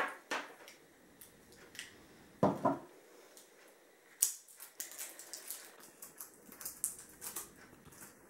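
Small plastic clicks and taps from a remote control's battery cover being prised open with a knife and the batteries being handled, with a louder knock about two and a half seconds in and a sharp click a little after four seconds.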